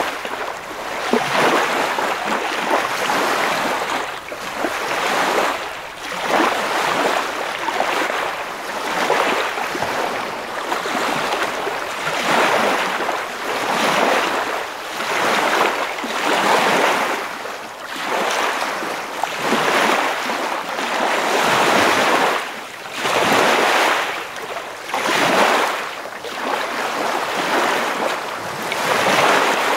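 Ocean surf: a rushing hiss of waves that swells and ebbs about every two seconds.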